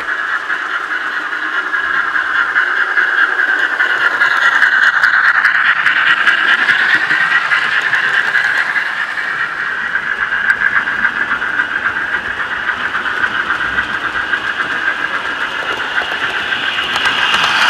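Model railway trains running close by on the layout: a steady high electric-motor whine that swells and wavers in pitch, with scattered clicks of wheels over the track.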